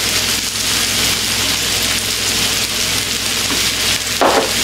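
Burger patties frying in their own grease on a griddle tray: a steady sizzle.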